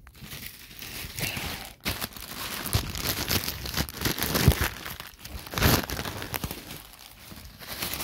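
A thin plastic shoe bag crinkling and rustling as it is handled, with a couple of louder crackles around the middle.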